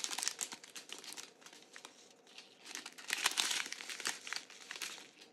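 Small clear plastic zip bags of diamond painting drills crinkling as they are handled and sorted, in uneven rustles that ease off about a second in and pick up again around three seconds in.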